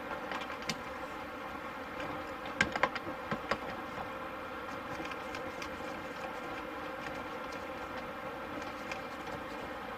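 A steady buzzing hum, with a few sharp clicks and knocks about two and a half to three and a half seconds in.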